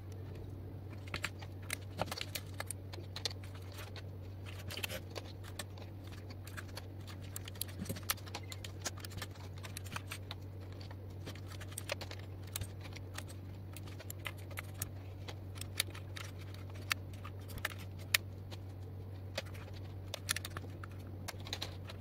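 Keycaps being pressed onto a mechanical keyboard's blue switch stems: many irregular, light plastic clicks and clacks, over a steady low hum.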